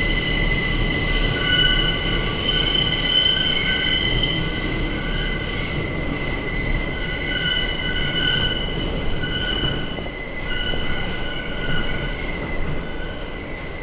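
Train wheels screeching against the rails through a tunnel: a loud, high squeal of several pitches that swells and fades over the low rumble of the running train.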